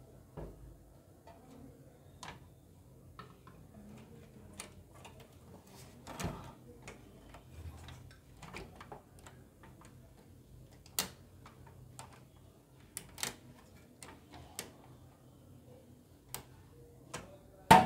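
Irregular light clicks and taps of the metal mounting bracket and screws of an Ant Esports ICE-C612 V2 CPU air cooler being handled and fitted to a motherboard, with a sharper knock just before the end.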